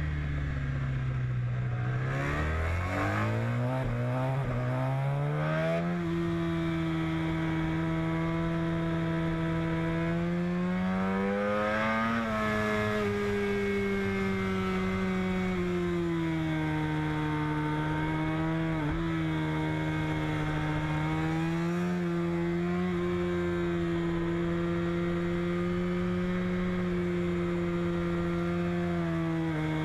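Honda RC213V MotoGP bike's V4 engine heard from an onboard camera at racing speed: the revs climb steeply a few seconds in, swell and fall back around the middle, then hold fairly steady through a long corner.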